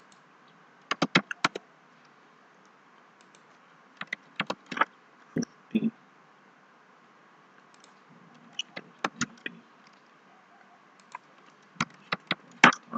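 Computer mouse and keyboard clicks, in short clusters of a few sharp clicks separated by quiet gaps of a second or more.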